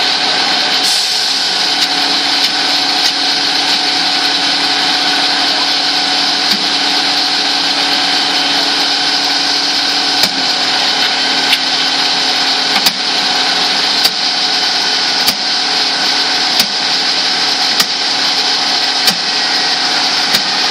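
Steady drone of a running engine at a fire scene, even and unchanging, with a sharp click about every second and a quarter from about halfway through.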